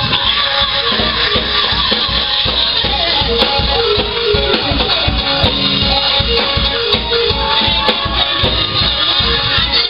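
Live church band music with electric guitar and drums playing a steady, fast beat.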